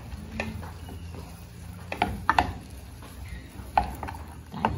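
Wooden spoon stirring corn kernels in a stainless steel pot, knocking against the pot about six times, with a quick double knock a little past the middle.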